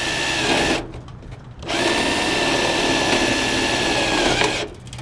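Cordless drill driving a screw through the gutter screen into the top of a metal gutter: a steady motor whine that stops just under a second in, then a second, longer run of about three seconds that dips slightly in pitch at the end.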